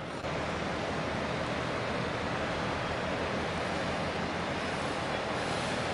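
Steady outdoor noise of wind and water with a low, even engine drone underneath from a container ship and harbour tug. It steps up slightly in level shortly after the start.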